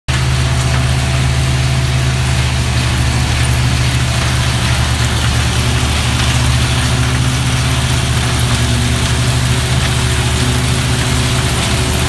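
Walnut harvesting machinery running steadily: a low, even engine hum with the noise of the elevator conveyor carrying walnuts into the harvester's hopper.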